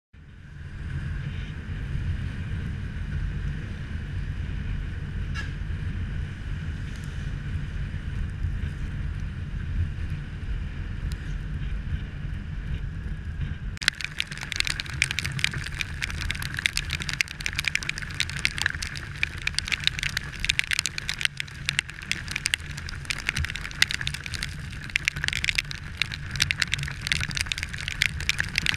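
Riding a Yamaha scooter in the rain: a steady low rumble of wind and engine on the camera microphone. About halfway through, dense crackling of raindrops hitting the camera starts and continues over the rumble.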